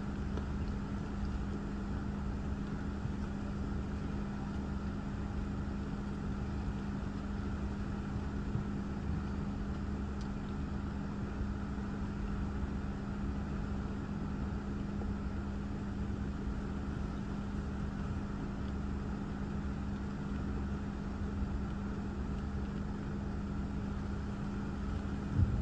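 A car idling, heard from inside the cabin as a steady low hum that does not change.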